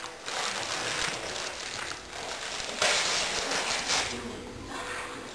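Wrapping paper and tissue rustling and crinkling as a gift is unwrapped, in two stretches with a short lull near the end.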